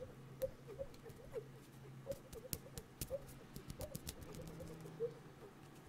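ASMR mouth sounds: short, squeaky lip chirps made with the fingers at the mouth, several a second at uneven spacing, with light wet clicks between them, imitating small animal or bird calls.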